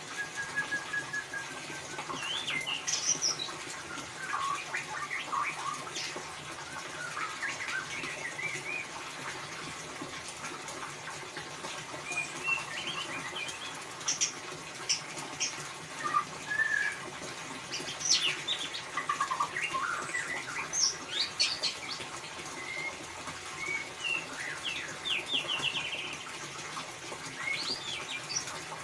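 White-rumped shama singing in the fast, chattering 'ngeriwik' style: a stream of short, varied chirps, whistles and quick trills over a steady hiss.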